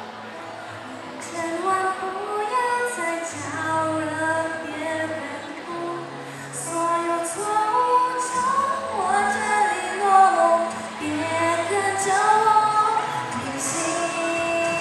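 A girl singing a Mandarin song solo into a handheld microphone, with long held and gliding notes over an instrumental accompaniment of sustained low notes.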